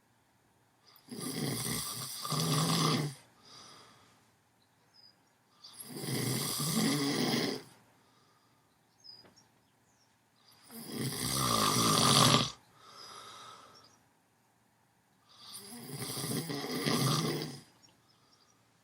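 Someone asleep snoring: four long snores about five seconds apart, with quiet breathing in between and a softer breath after some of them.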